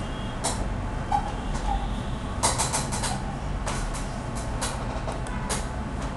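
Computer mouse clicking, with a quick run of four or five clicks about two and a half seconds in and single clicks after, over a steady low hum.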